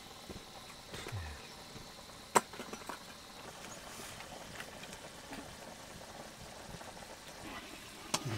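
Wood cooking fire under a steaming wok: a low steady boiling noise with a few sharp pops, one much louder crack about two and a half seconds in.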